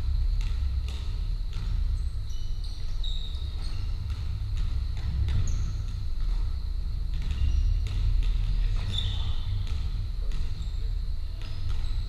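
Basketball bouncing on a wooden sports-hall floor during play, with short high squeaks of sneakers on the court, over a steady low rumble.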